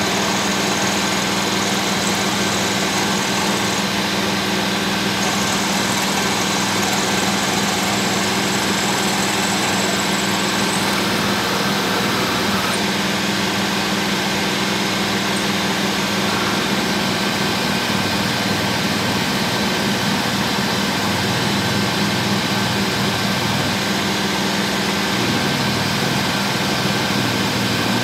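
Small benchtop metal lathe running steadily with its chuck spinning, while a drill held in the tailstock is fed into the work by the handwheel.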